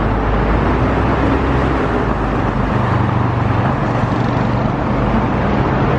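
Steady road-traffic noise: a continuous rumble with a low engine hum.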